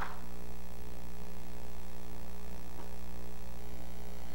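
Steady electrical mains hum in the recording, with one brief vocal sound right at the start.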